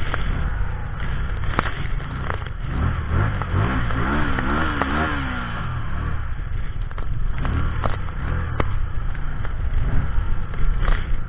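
Wind buffeting the microphone in a snowstorm, with a few sharp clicks. A short pitched sound wavers quickly up and down about halfway through.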